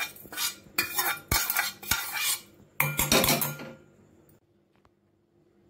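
Steel slotted spoon scraping roasted coconut and spices out of a non-stick pan into a steel mixer jar, several scrapes and clinks of metal on metal. It stops about three and a half seconds in.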